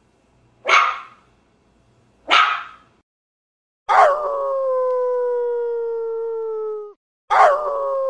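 A dog barks twice, then gives two long howls that sink slightly in pitch; the second howl begins near the end.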